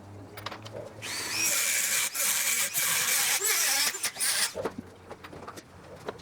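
A power tool running for about three and a half seconds, with a high squeal wavering through it, then stopping.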